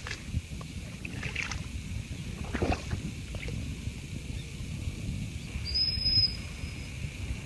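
Footsteps squelching and splashing through a flooded, harvested rice paddy, with wind rumbling on the microphone. A brief high whistle sounds once about six seconds in.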